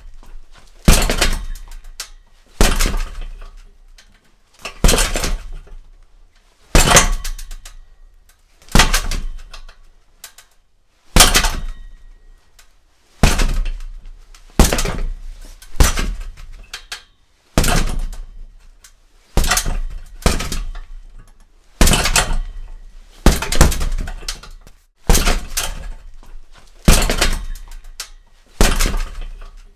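Single gloved punches landing on a boxing heavy bag hung by a chain, one every second or two. Each is a sharp thud followed by a decaying echo.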